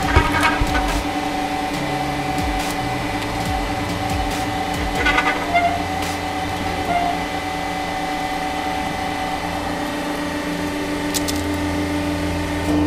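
Hydraulic press's pump motor running with a steady hum. There is a knock just after the start and a brief crackle of plastic about five seconds in, as the flattened plastic toy tractor is handled on the platen.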